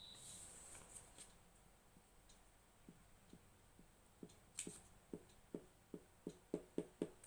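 Paper handling: a brief rustle, then a series of light taps on paper that quicken to about three a second near the end, as gum is applied to craft paper.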